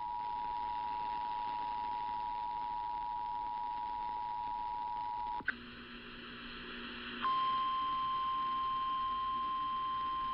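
Emergency Alert System attention signal, a steady two-tone electronic beep, holds for about five seconds and cuts off with a click. After a short burst of noisy crackle, a single steady, slightly louder NOAA Weather Radio alert tone comes on, which marks the start of the next warning.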